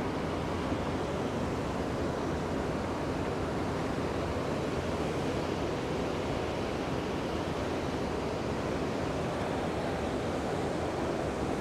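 Steady, unbroken rush of water pouring over a dam spillway and churning the river below it.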